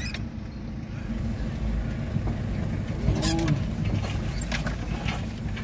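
A car's engine and tyre rumble heard from inside the cabin as it drives slowly, steady and low, with a few light clicks and a brief voice about three seconds in.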